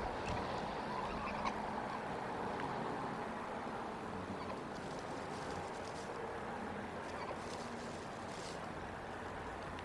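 Steady outdoor background hiss and low rumble, with a few faint, brief high bird calls.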